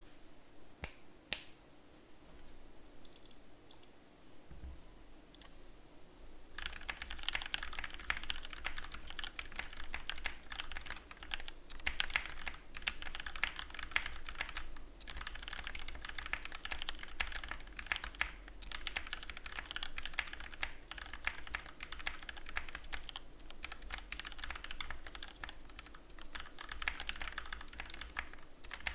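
Typing on an Epomaker EP84 mechanical keyboard fitted with lubed Gateron Milky Yellow linear switches, foam in the case and lubed stabilizers. A few single key presses at first, then steady, fast typing from about six seconds in.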